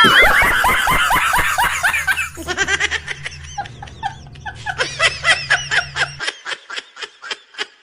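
Laughter in a long run of quick ha-ha bursts, loud at first and tapering off toward the end.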